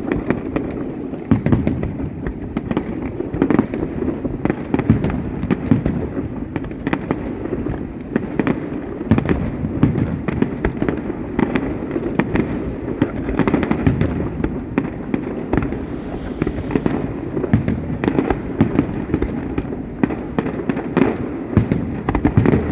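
Fireworks display going off in a dense, continuous barrage of bangs and crackles over a rumbling background. A brief high hiss comes about two-thirds of the way through.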